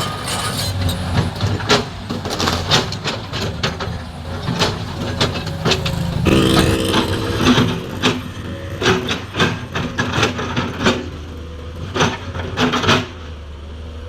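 Komatsu PC200-7 excavator's six-cylinder diesel engine running steadily under load while it breaks up a tree, with many sharp cracks and knocks of wood splintering and the bucket striking. About six seconds in a brief pitched whine rises over the engine.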